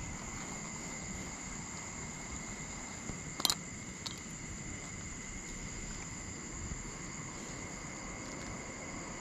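Steady chorus of night insects, two unchanging high trills, one higher than the other. A single sharp click about three and a half seconds in.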